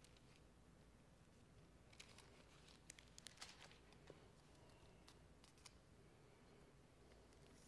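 Near silence with faint paper rustles and clicks of Bible pages being turned: a cluster of them about two to four seconds in and a couple more a little later.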